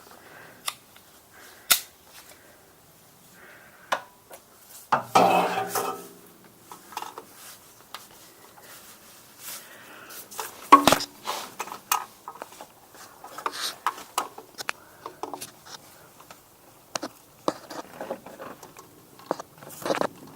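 Metal tool clinking, scraping and knocking against a stuck spin-on oil filter as it is forced to break loose, with irregular clicks throughout, a short pitched sound about five seconds in and the loudest knock about eleven seconds in.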